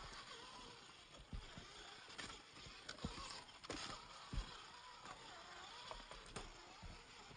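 Axial Capra 1.9 RC trail buggy crawling over rocks: faint scattered knocks and scrapes as its tyres and chassis meet stone, the sharpest about four and a half seconds in, over a soft steady hiss.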